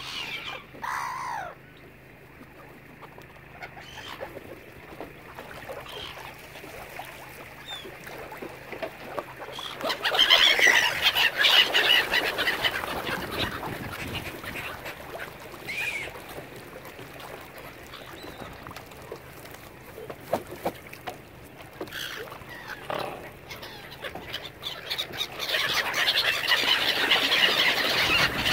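Mallard ducks quacking, in two loud, busy bouts about ten seconds in and again near the end, with a few single calls between them.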